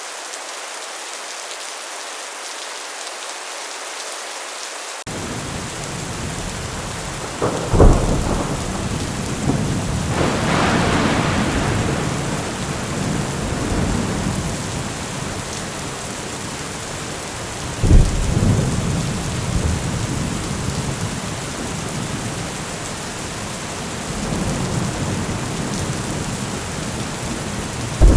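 Heavy rain falling steadily on a metal roof. About five seconds in, a deep thunder rumble comes in, with sharp thunderclaps about eight and eighteen seconds in and another right at the end.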